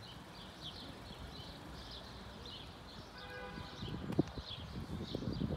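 Small birds chirping over and over in short calls, with a few soft thumps in the second half, the loudest about four seconds in.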